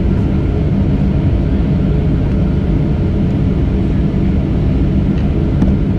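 Steady low rumble of a Boeing 737-700's CFM56-7B jet engines, heard from inside the passenger cabin.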